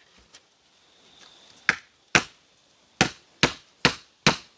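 A knife chopping food on a hard surface: a light tap early on, then six sharp chops in the second half, the last four about two a second.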